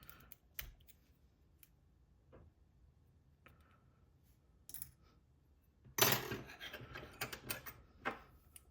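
Small metallic clicks from handling the parts of a Paclock 90A Pro padlock, with a denser run of clicking and clattering about six seconds in.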